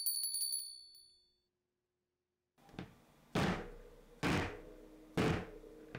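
A square metal cake pan holding a freshly baked chocolate sponge is knocked down onto a wooden board three times, about a second apart, each a hard thunk with a short ring from the pan; this tapping lets the steam out of the hot cake so it doesn't shrink. A brief high chime sounds at the very start.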